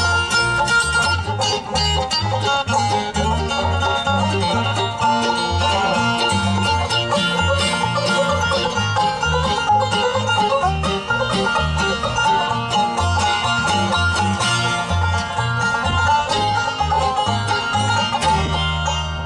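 Live bluegrass band playing an instrumental passage, with no singing: five-string banjo, mandolin and acoustic guitar over an upright bass keeping a steady pulse. Near the end the bass settles into a long held low note.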